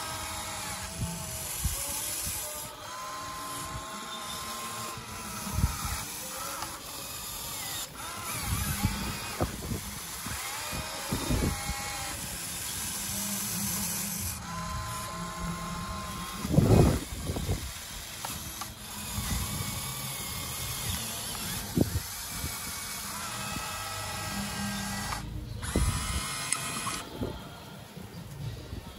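Radio-controlled scale-model hydraulic excavator working: its electric hydraulic pump whines in runs of a few seconds, the pitch rising and falling as the boom and bucket move, with knocks and scrapes of the bucket digging wet sand. The loudest is a thud about halfway through.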